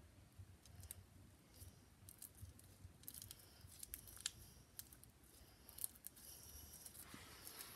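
Faint sticky clicks and crackles of pink slime being squeezed and stretched between the fingers, with the crackling a little denser near the end.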